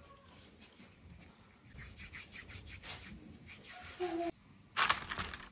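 Irregular rubbing and scraping, with a louder, sharper scrape near the end.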